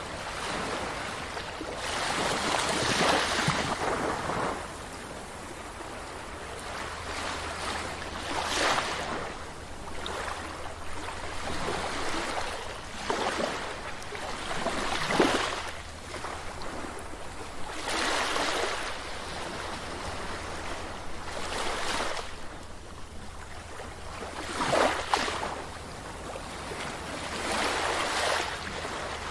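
Sea waves breaking and washing onto a beach, the surf swelling and falling away every few seconds.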